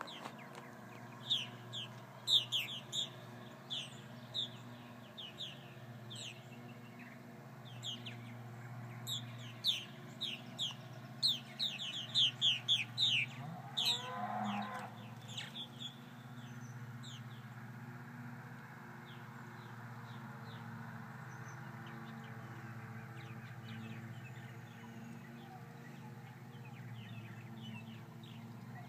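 Purple martins calling in flight over their colony: a run of short, sharp chirps for the first half or so, thinning to a few faint calls later, over a steady low hum. A single lower call rises and falls about halfway through.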